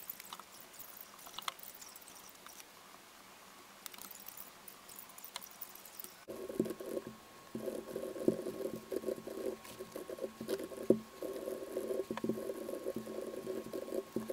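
Faint scratching and light ticks of a pen writing on paper. About six seconds in, a muffled steady hum with a low, fluctuating murmur comes in and carries on.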